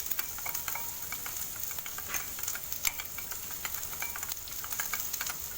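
Food sizzling in hot oil in a wok, a steady hiss, with frequent clicks and taps from a utensil stirring against the pan.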